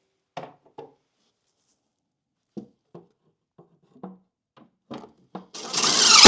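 Scattered light knocks and clunks of a wooden stand base and milk crates being handled, then near the end a loud noise that builds up quickly.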